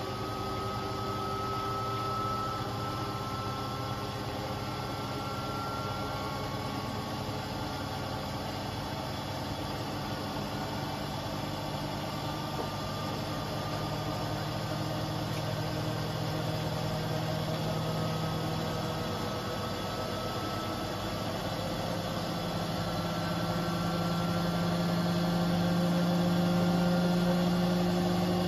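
Beko WTK74011W front-loading washing machine spinning its drum on the spin-and-drain cycle: a steady motor hum with faint high whining tones, growing a little louder near the end.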